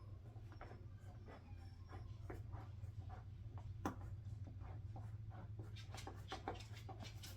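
Light scratching and scattered clicks of a large cutting mat being cut and handled, with one sharp click about four seconds in, over a steady low hum.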